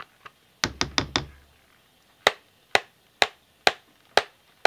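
Sharp knocks of a utensil tapped against the crock pot while clearing off thick soap batter: a quick cluster of four about a second in, then a steady knock about twice a second.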